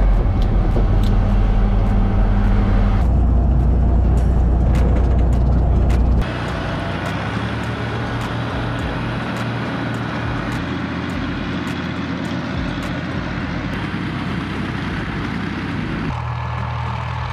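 Tor-M2 tracked air-defence vehicle's engine running under load, loud and deep inside the driver's compartment for the first six seconds, then heard from outside as the vehicle drives across the field, a steady rough running noise with occasional clicks.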